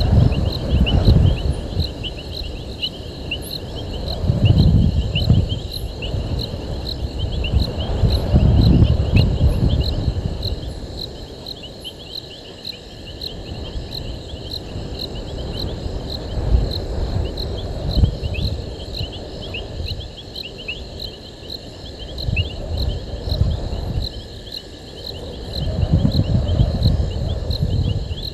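Crickets chirping through the night in an even rhythm of about two chirps a second, with other insects calling irregularly alongside. Low rumbling swells rise and fade several times underneath and are the loudest sound.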